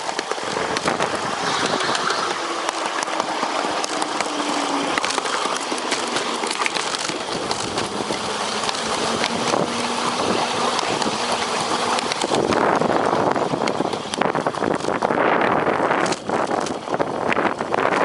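Fairmont rail speeder riding along the track: a steady, noisy rush of wheels on rail with the motor under it and scattered clicks and knocks. About two-thirds of the way through, the sound gets louder and rougher.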